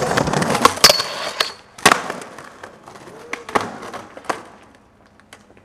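Skateboard wheels rolling over paved street, broken by several sharp clacks of the board striking the ground: about a second in, at two seconds, and twice more around three and a half to four seconds. The rolling fades out toward the end.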